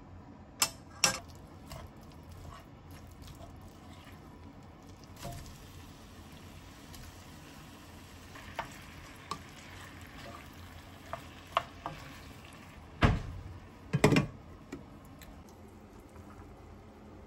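Cooking sounds: a utensil clinks and knocks against cookware about a dozen times over a faint steady hiss of food cooking, with two heavier clunks near the end.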